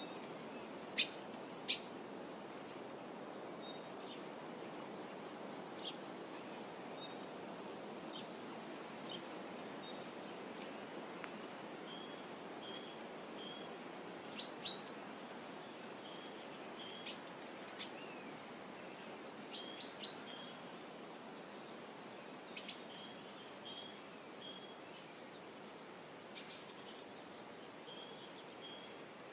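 Wild birds chirping and calling over a steady low background wash: scattered short chirps, a run of quick repeated notes in the second half, and a few louder sharp calls that stand out above the rest.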